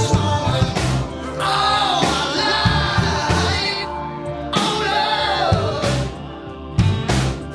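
A song playing: sung vocals with gliding pitch over a drum beat and bass.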